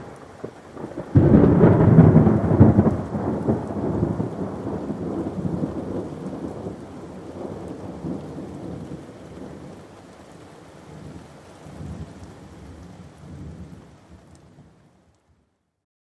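Thunder: a loud clap breaks suddenly about a second in and rolls on as a long rumble, swelling again a few times while it fades away. It dies out shortly before the end.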